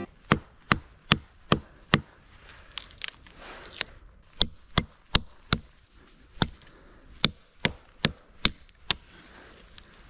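A bushcraft knife chopping at the branches of a fallen tree trunk to delimb it. The sharp knocks come about two a second in runs, with a short pause around three seconds in.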